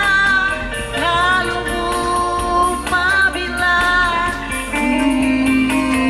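Background music: a song with a sung melody over instrumental accompaniment.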